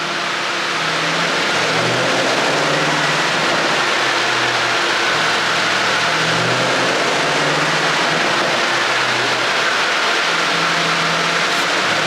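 Porsche Panamera GTS twin-turbo V8 with an ECU sound tune, running steadily. Its low engine note swells and fades several times over a constant rushing noise, with no distinct pops.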